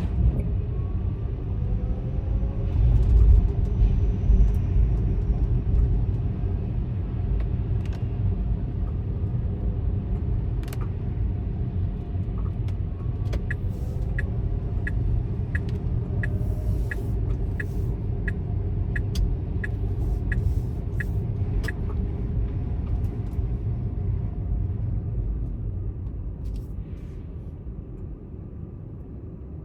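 A car driving: a steady low road and engine rumble. Midway there is a run of regular ticks, about one and a half a second, for roughly eight seconds.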